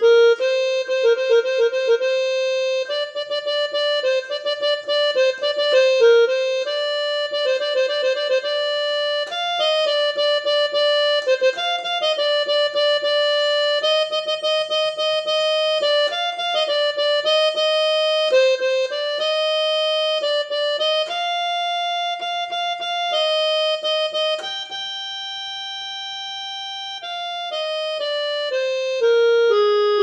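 Casio electronic keyboard played one note at a time with the right hand, a melody in raga Punnagavarali (G minor). It has quick repeated-note flourishes, then long held notes in the last third, and ends on a falling line.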